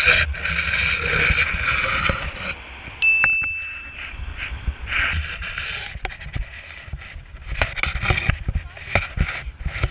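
Wind buffeting a camera microphone held out of a moving car's window, a steady low rumble with scattered gusts and knocks. About three seconds in, a short high ding rings for about a second.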